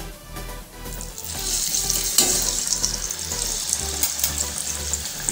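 A moong dal chakli dropped into hot oil in a steel pot for deep-frying. The oil starts sizzling and bubbling about a second in and keeps up a steady loud sizzle.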